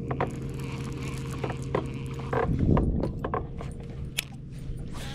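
A bass boat's motor humming steadily, with scattered sharp mechanical clicks and a louder rattling knock about two and a half seconds in.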